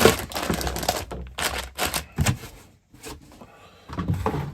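Cardboard Lego kit box and its contents being handled and unpacked: a string of light knocks, taps and scraping rustles, with a brief lull a little before three seconds in.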